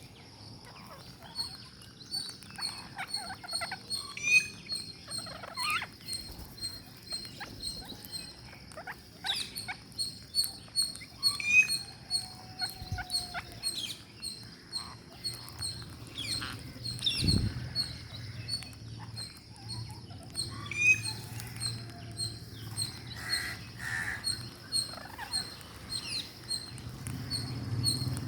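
Parrots calling with short, sharp, irregular squawks and chatter. A faint high chirp repeats about twice a second underneath.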